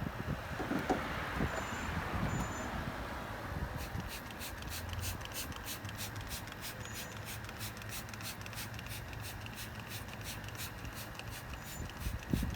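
A spray hissing for the first few seconds and fading out, over a steady low hum; from about four seconds in, a faint regular ticking of roughly three ticks a second.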